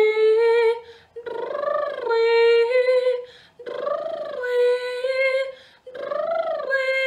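A woman sings a vocal warm-up on the vowel "ee" in four short phrases. Each phrase rises and falls in pitch and then settles on a held note. It is a falsetto exercise that contrasts a clear tone with a breathy one, sung with extra air.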